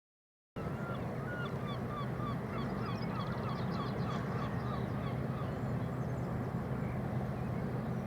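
A bird calling a quick run of short, repeated notes, about two or three a second, for four or five seconds, over a steady low hum.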